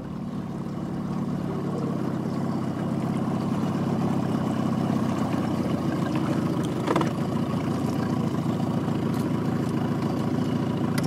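A jon boat's outboard motor running steadily. It builds up over the first few seconds and stops abruptly near the end.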